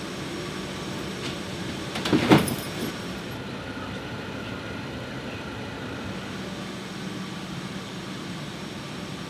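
Steady jet engine noise of a C-17 Globemaster III with its engines running on the ground, heard around the aircraft, with a brief loud clatter a little over two seconds in.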